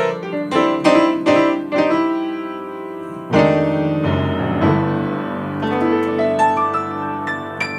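Piano playing without voice: chords struck in an even rhythm, then a new chord held from about three seconds in with light higher notes picked out over it.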